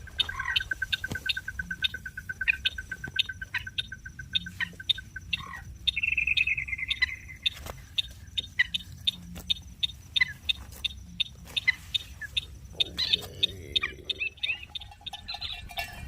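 Bird calls: a steady run of short high chirps at about four a second, with a long, even trill starting just after the start and lasting about four seconds, and a brief higher call a few seconds later.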